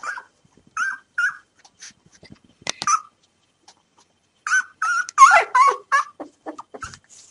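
Newborn Rafeiro do Alentejo (Portuguese Mastiff) puppies, three days old, whimpering in short high squeaks: a few scattered cries at first, then a quick run of overlapping cries about four and a half seconds in, the loudest part. These are hungry newborns waiting to be fed milk.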